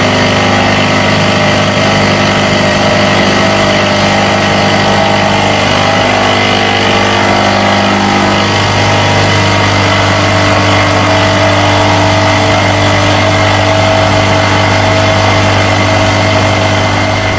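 Two-insert face mill cutting a 1018 steel plate on a milling machine: a loud, steady machining sound of spindle and inserts taking material off. Its tone shifts about halfway through.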